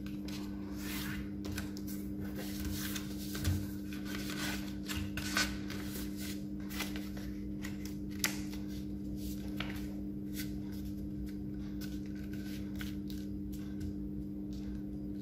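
A sheet of paper being folded and creased by hand, rustling and crinkling in short irregular strokes as the fingers press and smooth the folds, over a steady low hum.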